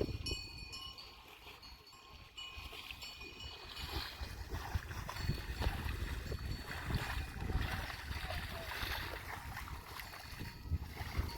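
Water splashing and sloshing, louder from about two seconds in, with a light ringing of bells over the first couple of seconds.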